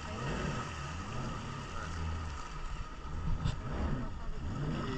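Jet ski engine running at low speed, its pitch rising and falling as the throttle is worked, over the hiss of water and wind, with a brief click about three and a half seconds in.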